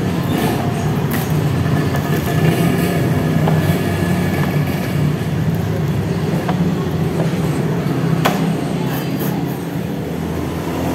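Steady low background rumble, with a few sharp crackles as the paper lid of an instant-noodle cup is peeled back.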